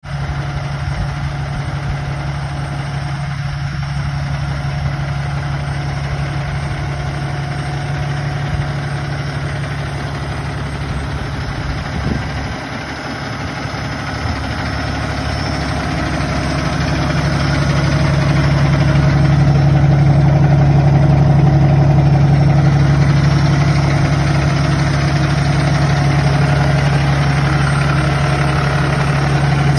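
Peterbilt 567 dump truck's diesel engine idling steadily, a low even drone that grows louder a little past halfway through.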